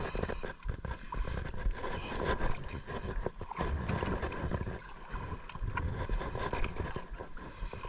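Sea water lapping against a kayak hull, with wind on the microphone and scattered light clicks from a conventional jigging reel being cranked during a fish fight.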